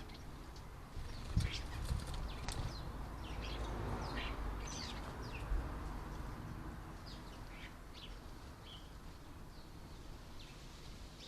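Small garden birds at a feeder giving short, high chirps and calls scattered all through, with a few sharp taps in the first few seconds, over a low steady background rumble.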